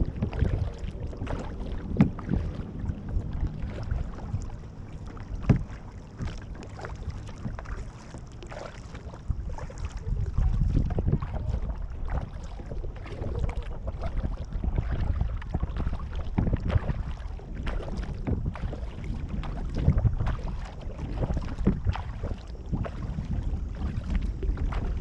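Kayak paddling on a creek: paddle strokes splashing and dripping water, with a steady low rumble of wind on the microphone. Two sharper knocks stand out about two and five seconds in.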